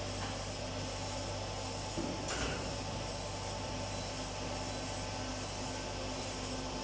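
Rolam XL-1450 corrugated box folder gluer running: a steady mechanical hum with a faint high whine, and one short click about two seconds in.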